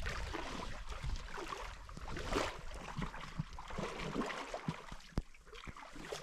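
Water lapping and gurgling against a boat's hull in irregular small splashes, with a few light knocks near the end.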